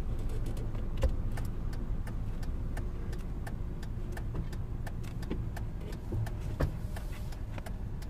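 Pickup truck rolling slowly, heard from inside the cab: a steady low road and engine rumble with scattered light clicks and ticks.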